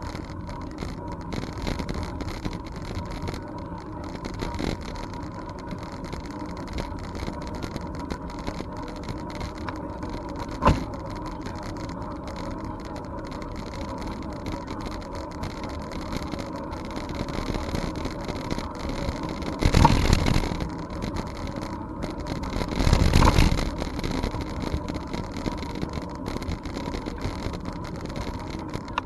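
Bicycle riding along a trail, heard from a camera on the bike: steady tyre and wind noise, a single knock about ten seconds in, and two louder bursts of noise, each about a second long, a little past the two-thirds mark.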